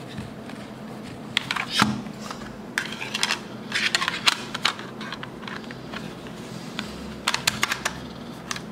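Clicks and scraping of an Orico 2.5-inch hard drive enclosure's cover being slid and snapped shut over the drive, coming in three short clusters.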